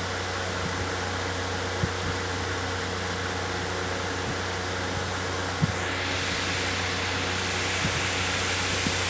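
Electric fan running steadily: an even whooshing hiss over a constant low hum. The upper hiss turns slightly brighter about six seconds in, and there are a couple of faint ticks.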